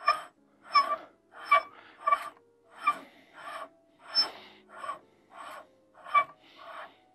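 Moonlite LiteCrawler focuser being screwed by hand onto the threaded rear of a Celestron EdgeHD 11 telescope: a steady run of short rasping, rubbing strokes, about one every two-thirds of a second, as the threads are turned home.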